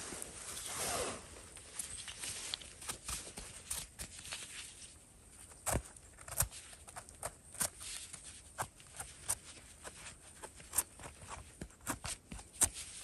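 Dry leaf litter and twigs rustling and crackling underfoot and under hand on a forest floor. A burst of rustling comes near the start, then scattered sharp snaps and clicks at an uneven pace.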